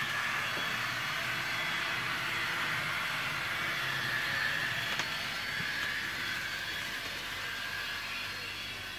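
Kato N-scale VT 18.16 model train running along the track: a steady whir of its small motor and wheels on the rails, with one click about five seconds in, growing a little fainter near the end.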